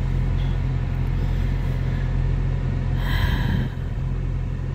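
Steady low rumble of a car heard from inside the cabin, with a brief higher-pitched sound about three seconds in.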